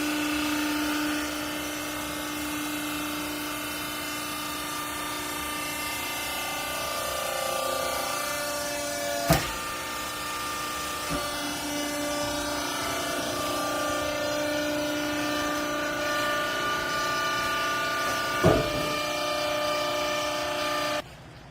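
A rags baler machine running with a steady mechanical whine of several tones that shift in pitch as it works. There are two sharp knocks, one about halfway through and one near the end, and the sound stops abruptly just before the end.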